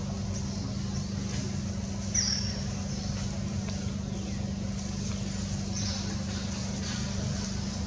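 A steady low hum, like a distant engine, with a few short high-pitched chirps on top; the loudest chirp comes about two seconds in and another near six seconds.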